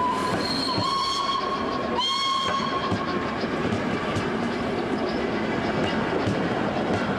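Two blasts on a T3 steam tank locomotive's whistle, the first about a second and a half long and the second about a second, over the steady clatter of passenger coaches' wheels on the rails as the train passes.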